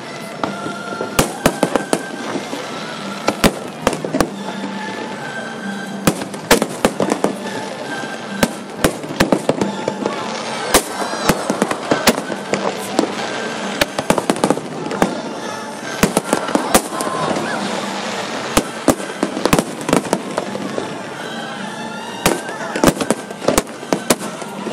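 Aerial fireworks display bursting: an irregular barrage of sharp bangs that bunch into dense volleys, with music and voices underneath.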